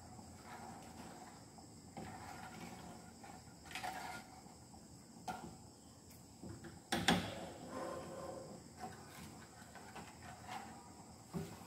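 A spatula stirring and scraping in a frying pan, with a few sharp knocks of the utensil against the pan, the loudest about seven seconds in.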